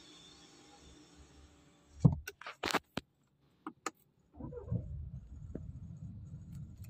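A few sharp clicks, then a Volkswagen Passat's 2.0 diesel engine starts about four seconds in and settles into a steady low idle, heard from inside the cabin. This is its first start after a new timing belt, water pump, tensioner and V-belt.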